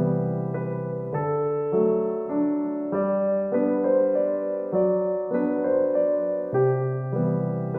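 Background piano music: a gentle, slow melody of sustained notes over a repeating bass line.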